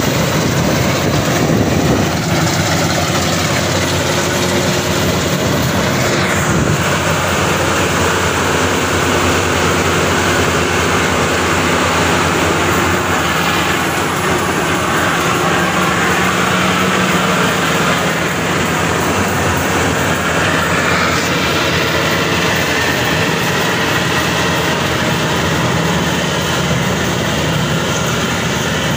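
Maxxi Bimo Xtreme 2.0 L rice combine harvester running under load while harvesting: a loud, steady engine drone mixed with the noise of its cutting and threshing machinery.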